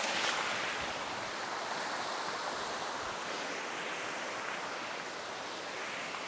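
Flowing creek water rushing steadily, easing very slightly in level over the few seconds.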